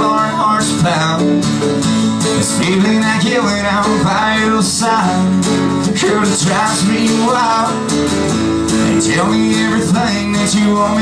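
Acoustic guitar strummed steadily while a man sings a country song.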